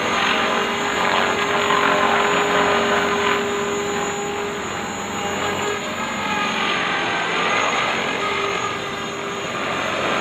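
Thunder Tiger Mini Titan E325, a 450-class electric RC helicopter, hovering: the steady buzz of its main and tail rotors with the whine of its electric motor. The whine holds one pitch for the first few seconds, then wavers as the helicopter manoeuvres.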